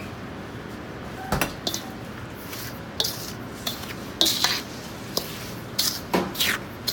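Metal ladle scraping and knocking against a stainless steel mixing bowl as it stirs ground spice into a bowl of salt, the grains rasping under it. The short, irregular knocks and scrapes begin about a second in.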